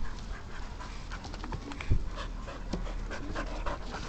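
Dogs panting hard and fast in quick, uneven breaths during a scuffle, with one sharp thump about two seconds in.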